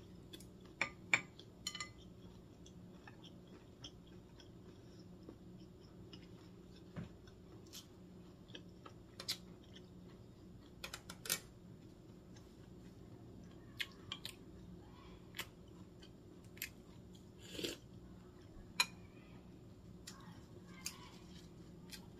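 Faint close-miked chewing of a mouthful of food, with scattered sharp wet mouth clicks and smacks over a steady low room hum.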